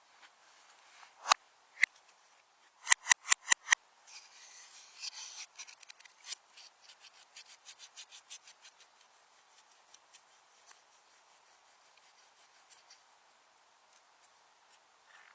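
Slime being squeezed and pressed by hand, giving sharp clicks and pops. There are two single clicks, then a quick run of five about three seconds in, then a crackling rustle and a train of smaller pops that fades away.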